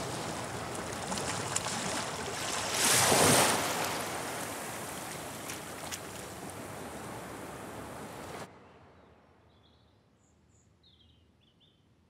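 Sea surf: an even rushing wash of waves, with one louder surge about three seconds in. It cuts off abruptly about eight seconds in, leaving near quiet with a few faint high chirps.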